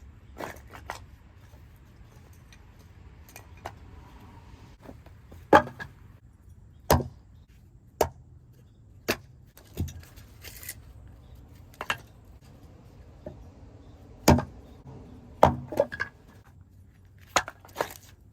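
Wood being chopped: a series of sharp, loud strikes about one to two seconds apart, with a couple of quick double strikes near the end.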